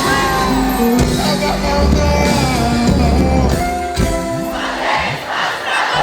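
Live pagode band playing, with singing and a heavy bass line, over a large crowd. The music breaks off about four and a half seconds in, and the crowd cheers and shouts.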